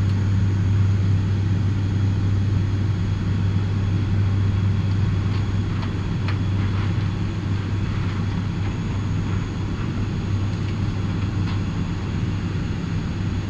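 ATR 72's twin turboprop engines and propellers heard from inside the cockpit during the climb-out after takeoff: a steady, unbroken low drone mixed with airflow noise.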